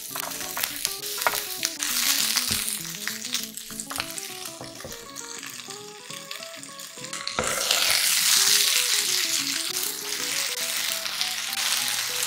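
Vegetables sizzling in a non-stick frying pan while being stirred with a wooden spatula, with short scraping clicks. About seven seconds in the sizzle turns suddenly louder and more hissing. Light background music runs underneath.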